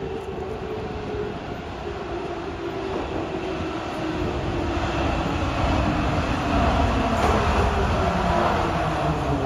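Soviet-built 81-71 metro train arriving at a station platform and slowing down. Its whine falls slowly in pitch while the low rumble of the wheels grows steadily louder as it approaches.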